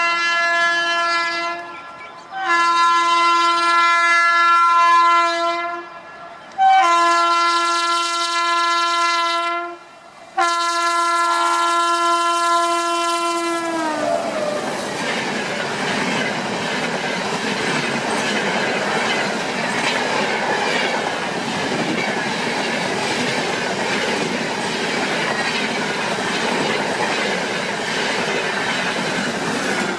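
Indian Railways locomotive horn sounding four long blasts, the last one falling in pitch as it dies away, then the steady rumble and clatter of the train running on the track.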